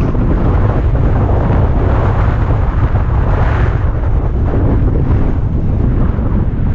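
Heavy wind buffeting on the microphone of a mountain bike ridden fast down an enduro trail, over the steady rumble of its tyres on the rough ground.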